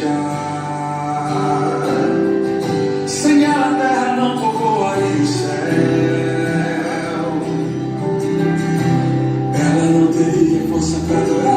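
Brazilian gospel song with male lead vocals over guitar and a steady bass line.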